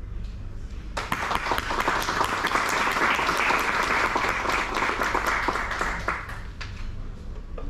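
Audience applauding at the end of a violin piece. The clapping starts about a second in, keeps up for about five seconds, then thins out to a few last claps near the end.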